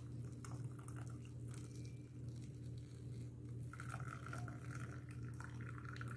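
Masala tea with milk being poured through a plastic tea strainer into a steel tumbler: a faint trickle and splash of liquid, over a steady low hum.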